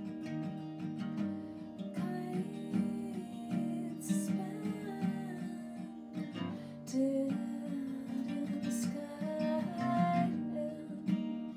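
Acoustic guitar being strummed in a song passage, with a woman's singing voice joining in over the guitar in the second half.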